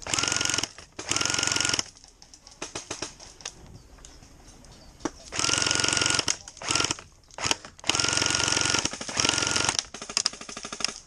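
Electric airsoft guns firing repeated full-auto bursts, each under two seconds long, with a motor whine that rises briefly as each burst starts. A quieter, faster rattle of fire comes near the end.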